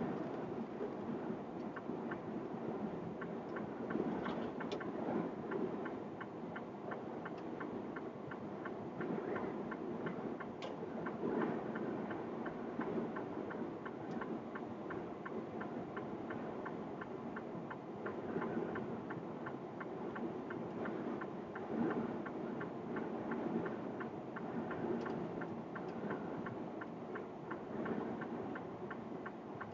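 Steady road and engine noise inside a vehicle's cab on a highway, with a fast, even ticking over it.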